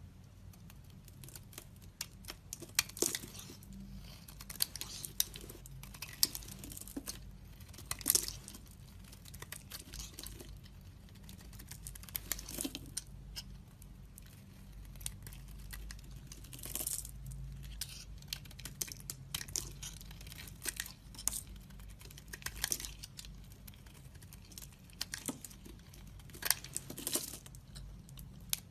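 A blade cutting and carving into a bar of soap: irregular crisp cuts and crumbly scraping strokes, a few louder than the rest.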